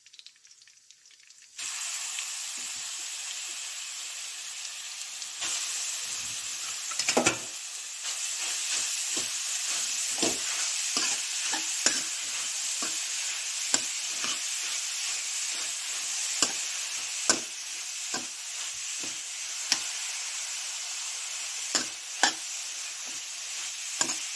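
Grated carrots sizzling in hot ghee in a metal kadhai, stirred with a steel spoon that clinks and scrapes against the pan over and over. The sizzle starts suddenly about a second and a half in, as the carrots go into the ghee, and stays steady after that.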